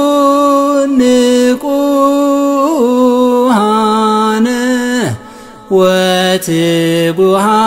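Eritrean Orthodox Tewahedo liturgical chant sung in long held notes that step up and down in pitch. About five seconds in there is a falling slide and a brief break, and then the chanting carries on.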